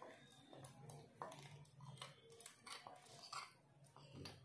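Faint, scattered clicks and scrapes of a steel spoon working thick khoa paste out of a bowl and into a pot of milk.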